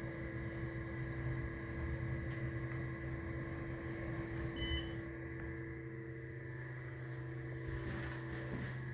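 Elevator machine-room equipment humming steadily, a constant drone with several fixed pitches. A short high beep comes about halfway through.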